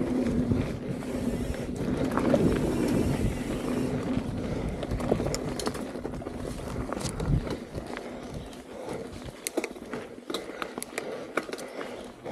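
Mountain bike rolling fast down a dirt singletrack: tyres rumbling over the dirt, with the bike rattling in sharp clicks and knocks over roots and bumps. The rumble eases about eight seconds in, leaving mostly scattered clicks.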